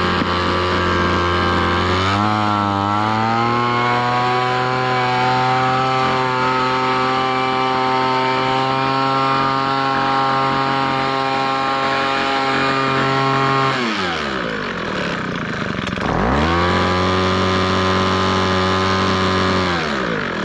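Homelite gas leaf blower's two-stroke engine running. It revs up about two seconds in and holds steady, drops sharply a little past halfway, revs back up a couple of seconds later, then starts winding down near the end.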